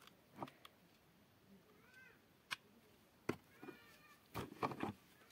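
Sharp clicks and knocks of a plastic cordless-drill battery pack and charger plug being handled and pushed together. Between them, a few faint short meows, each rising and falling in pitch, about two seconds in and again near four seconds.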